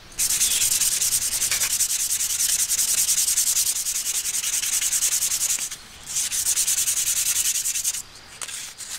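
320-grit waterproof sandpaper rubbed quickly back and forth along a hand-carved wooden chopstick to smooth it: a fast, even rasping. It breaks off briefly about six seconds in, resumes, and stops about a second before the end.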